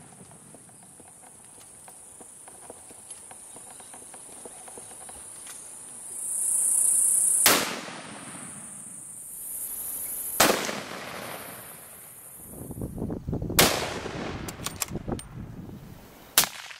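Four hunting rifle shots a few seconds apart, each a sharp crack with a short tail, over a steady high-pitched buzz of insects that swells twice.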